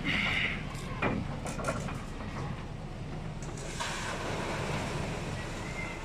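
Construction-site noise: an engine running steadily, with a few scattered knocks and clatter.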